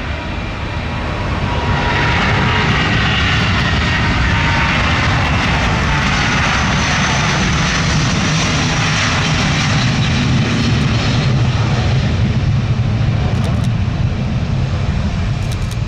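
Airbus A330-900neo's Rolls-Royce Trent 7000 turbofans at takeoff power. The sound grows louder about two seconds in, with a high whine that falls in pitch as the jet passes, leaving a deep, steady rumble in the second half.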